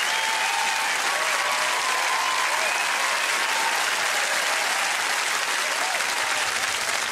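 Large studio audience applauding, with some cheering voices over the clapping.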